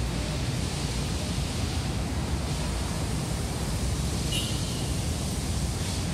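Steady outdoor background noise picked up by a phone's microphone: a low rumble under an even hiss, with a brief high chirp about four seconds in.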